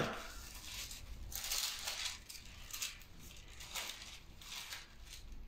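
Thin Bible pages being leafed through, rustling softly in several short flicks.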